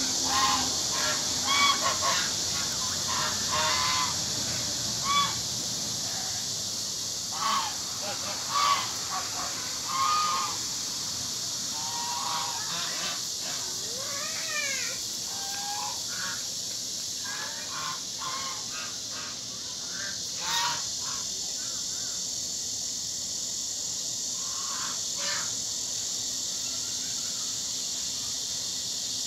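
Domestic geese honking, a scatter of short calls that come thickest in the first dozen seconds and grow sparser later, over a steady high hiss.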